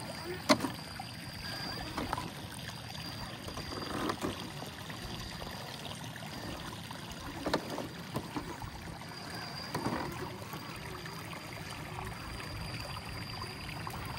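1/10-scale FMS LC80 RC crawler wading through a shallow rocky creek: water splashing and trickling around its tyres, with a few sharp knocks as it climbs over stones. A faint high whine comes and goes.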